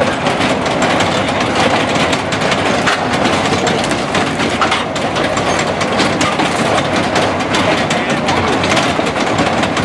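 Horse-powered treadmill running steadily, its slats and drive gearing clattering with rapid, continuous clicks as it turns the flywheel of a log splitter.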